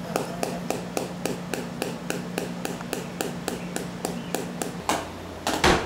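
A pen tapping steadily on a notebook page, about three and a half taps a second, stopping shortly before the end. A louder brief noise follows near the end.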